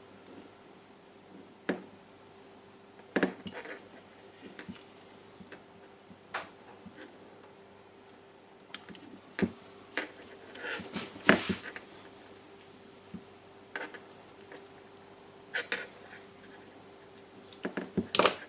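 Small clicks, taps and scrapes of hand work on an impact wrench's internals, prying its LED light free from the controller wiring. A few sharper knocks come about three, nine and eleven seconds in, over a faint steady hum.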